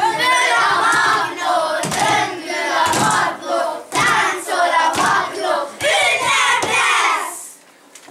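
A group of children's voices chanting together in unison, loud and rhythmic in short phrases, breaking off about seven seconds in.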